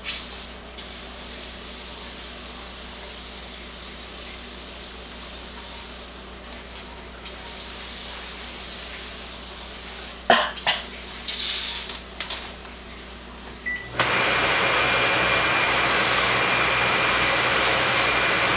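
Aerosol can of Easy-Off heavy duty oven cleaner hissing as it is sprayed inside the oven, with a couple of knocks about ten seconds in. About fourteen seconds in a fan switches on and runs with a steady, much louder whir and a thin high whine.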